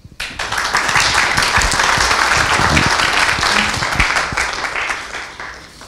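Audience applauding at the end of a talk; the clapping starts suddenly and dies away near the end.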